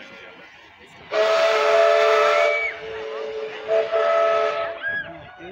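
Steam whistle of the WAGR steam locomotive S549 blowing a two-toned blast with steam hiss, starting about a second in. It dips partway and blows loud again before cutting off near the end.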